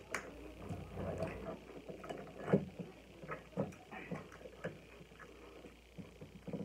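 Close-up eating sounds: chewing with soft, irregular mouth clicks and lip smacks.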